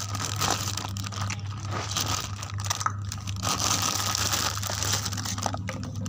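Rustling and crinkling handling noise, coming and going with short pauses and a few light clicks, over a steady low hum.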